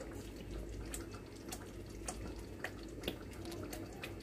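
Faint, sharp clicks about twice a second over a steady low hum.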